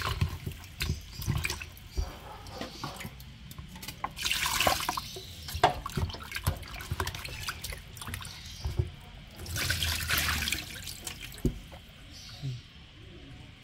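Tap water running and splashing while fish steaks are rinsed by hand in a plastic basin in a steel sink, with small knocks of the fish against the basin. The water comes in louder bursts and dies down near the end.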